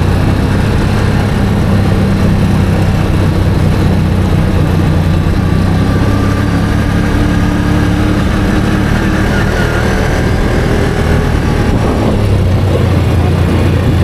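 ATV engine running steadily while under way, a continuous drone with small shifts in pitch as the throttle varies.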